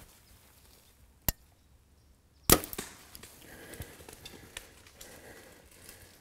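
A single sharp click, then about a second later the loud crack of a bow shot striking a whitetail buck. It is followed by a run of rustling and knocks through dry leaves and brush as the buck bolts.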